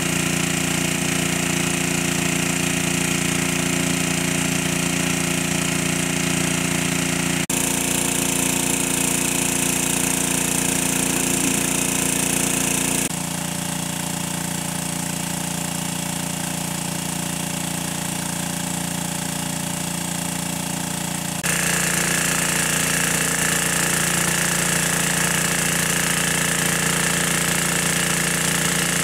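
Water pump's engine running steadily as it draws water. It changes abruptly in tone and loudness three times.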